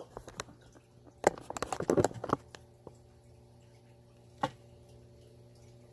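Handling noise as a phone camera is set down and moved: a quick cluster of small clicks and knocks about a second in, one more knock a little past the middle, over a faint steady hum.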